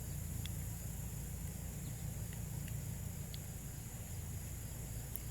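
Quiet outdoor ambience: a steady high-pitched insect chorus over a low rumble, with a few faint ticks.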